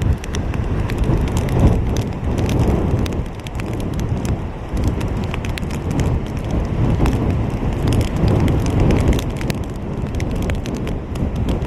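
Hurricane rain striking close to the microphone as dense, irregular sharp ticks, over a steady low rumble of wind.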